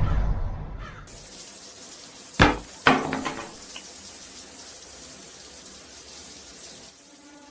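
Showers running in a tiled shower room, a steady hiss of water, with two sharp slaps about half a second apart as a bar of soap drops onto the wet floor.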